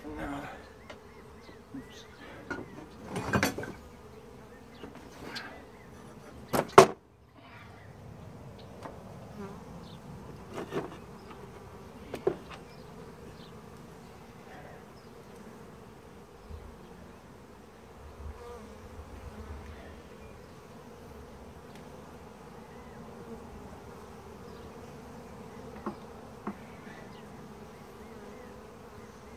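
Honey bees buzzing in a steady hum over an open hive. A few sharp knocks and clicks come from a metal hive tool prying and lifting the wooden frames, the loudest about seven seconds in.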